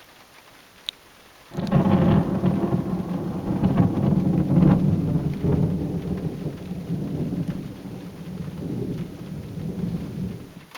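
Thunder breaks suddenly about a second and a half in and rumbles on loudly for about nine seconds, dying away near the end. Faint raindrops tick throughout.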